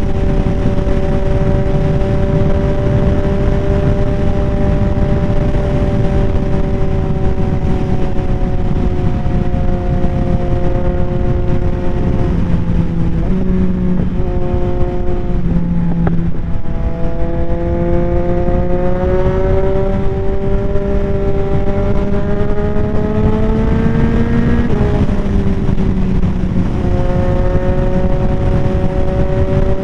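2022 Yamaha XSR900's 890 cc three-cylinder engine through a Kelpi Shorty aftermarket exhaust, running at a steady pitch while riding, with wind on the helmet microphone. About halfway through the pitch wavers and dips, then climbs steadily as the bike accelerates, drops sharply near the end as the throttle is rolled off or a gear is changed, and settles steady again.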